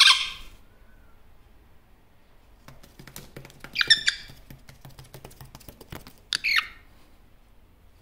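Male superb parrot (Barraband parakeet) calling: a loud squawk right at the start, a short run of chattering calls about four seconds in, and another call at about six and a half seconds, with light clicks between the calls.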